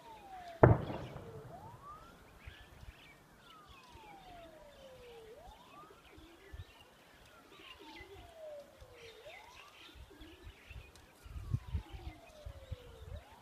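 A siren wailing, rising and falling slowly about once every four seconds. About a second in comes a single loud bang, a distant explosion, with birds chirping faintly throughout.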